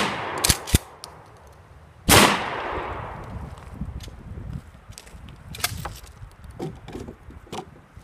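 12-gauge Remington 870 pump-action shotgun firing: the tail of one shot at the very start, two quick clicks as the pump is racked, then a second loud shot about two seconds in with a long echo fading away. Later come several light clacks and knocks of the guns being handled on a wooden table.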